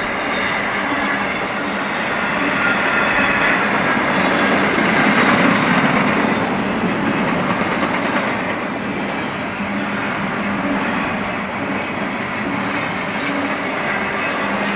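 Empty intermodal well cars of a freight train rolling past: steady wheel-on-rail noise, swelling a little about halfway through.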